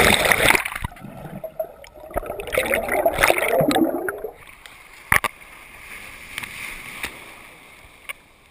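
Breaking white water rushes loudly over a waterproof camera. As the camera is pulled under, the sound turns to muffled underwater bubbling and gurgling for a few seconds. It then drops to a quieter steady wash, with a sharp knock about five seconds in.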